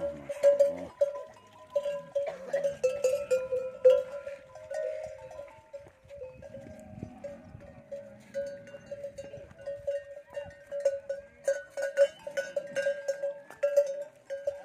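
Metal bells hung on camels' necks clanking and jangling irregularly as the camels move and jostle.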